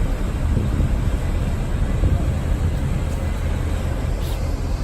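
Steady low rumble of a moving vehicle, with an even noisy hiss over it and a faint brief tick near the end.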